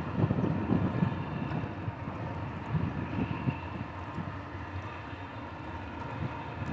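Wind buffeting the microphone in uneven gusts, strongest in the first second or so, over a faint steady background hum.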